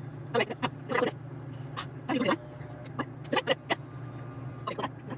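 Electric hair clippers running with a steady low buzz while shaving the head, with short vocal sounds over it.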